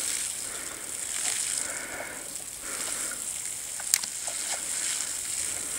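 Water spattering onto grass from the drilled holes of a plastic bucket watering pail as it is tipped, a steady splashing with scattered small clicks and one sharp click about four seconds in.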